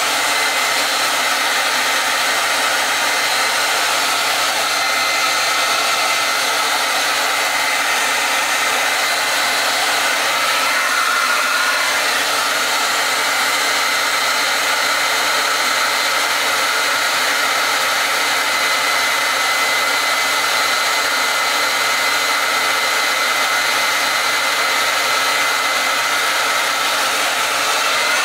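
Handheld hair dryer with a comb nozzle running steadily: a continuous rush of air with a faint high whine, its tone wavering briefly about ten seconds in.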